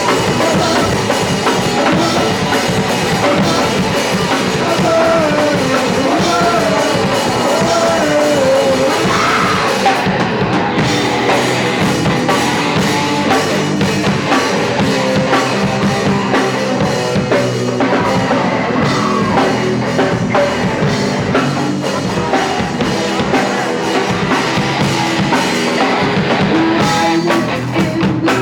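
Live punk rock band playing loud and distorted through a club PA: drum kit, electric guitar and bass, with some shouted singing.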